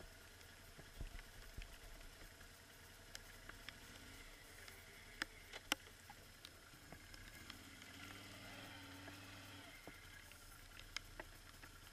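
Quiet, faint low hum of idling quad bikes, slightly stronger about eight seconds in, with scattered light ticks.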